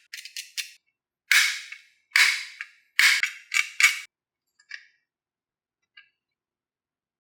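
Marbles clacking against wooden marble-run track pieces: a quick cluster of sharp clicks, then about five louder clacks a little under a second apart, thinning to a couple of faint ticks.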